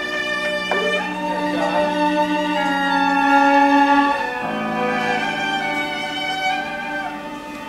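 Bowed string ensemble of violins and cellos playing long held notes in harmony. There is a short sliding note about a second in, and the chord changes about four and a half seconds in.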